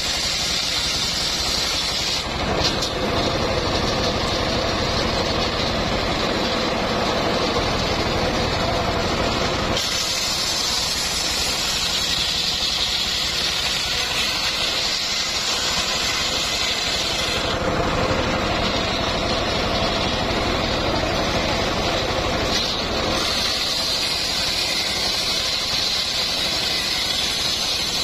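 Homemade engine-driven circular sawmill ripping a log lengthwise, running steadily under load. A high cutting whine drops out and comes back a few times as the log is fed through the blade.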